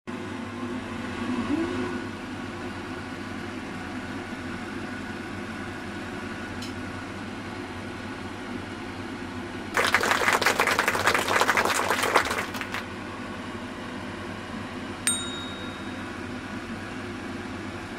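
Pan of chicken korma bubbling on a gas stove over a steady hum. About ten seconds in, loud crackling lasts about three seconds, and a single bell-like ding sounds about fifteen seconds in.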